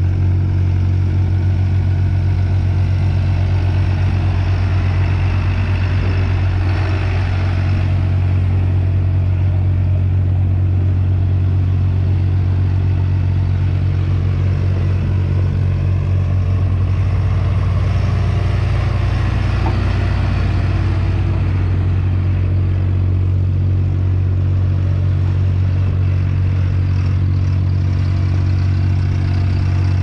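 JCB 3CX backhoe loader's diesel engine running at a steady engine speed as the machine drives and turns on gravel, giving a loud, even, low-pitched drone.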